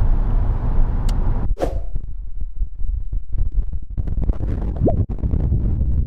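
Steady low road rumble inside a car, cut by a swoosh about one and a half seconds in. After it comes a gusty, uneven low rumble of strong wind buffeting the microphone, with a brief rising whine about five seconds in.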